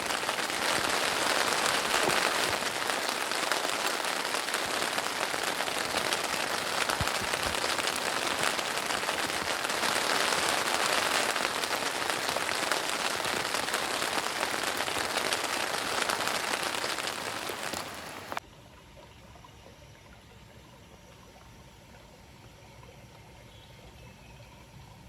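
Heavy rain falling, a dense steady hiss of drops, which cuts off abruptly about eighteen seconds in, leaving only a faint low background.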